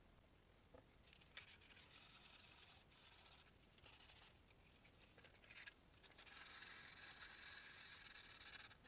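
Faint, scratchy strokes of well-used 120-grit sandpaper rubbed by hand across the metal head of a Callaway wedge to take out light surface scratches. The strokes come in short bouts, the longest near the end.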